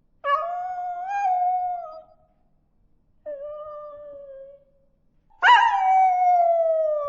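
Puppy howling: three drawn-out howls, the second quieter, the third the loudest, starting high and sliding down in pitch.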